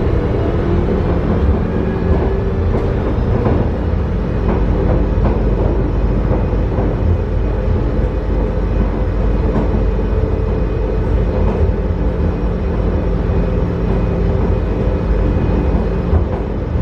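MRT metro train running: a steady low rumble of wheels on track with a constant hum and occasional light clicks.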